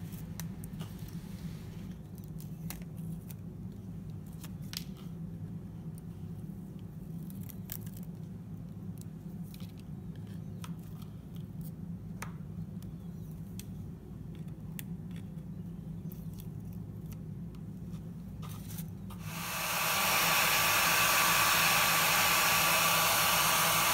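A faint steady low hum with scattered small clicks as vinyl stencil scraps are picked off the painted board with tweezers. About 19 seconds in, a hand-held hair dryer switches on and blows steadily at the painted sign, much louder than the clicks.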